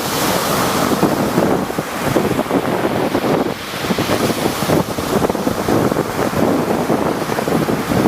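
Rough sea waves surging and breaking in a continuous rush that swells and eases, with wind buffeting the microphone.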